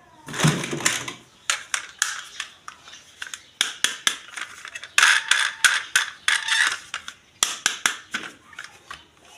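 Plastic toys and packaging being handled, a quick irregular series of clicks, taps and crinkles, busiest about halfway through.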